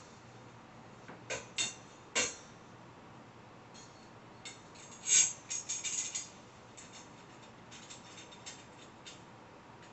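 Light metallic clicks and taps of a dish drying rack's metal rods and fittings being handled and fitted together by hand. A few clicks come near the start, the loudest cluster about five seconds in, then fainter ticks.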